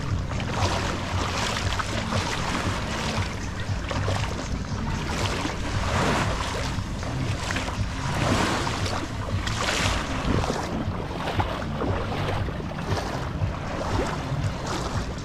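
Wind buffeting the camera microphone as a low rumble, over the wash of small waves lapping at a sandy shoreline, with irregular swishes every second or two.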